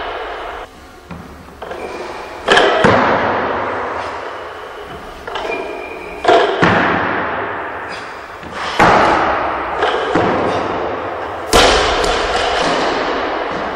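Loaded barbells with rubber bumper plates dropping onto lifting platforms: four heavy thuds a few seconds apart, each ringing on in a large echoing hall, with a couple of lighter knocks near the start.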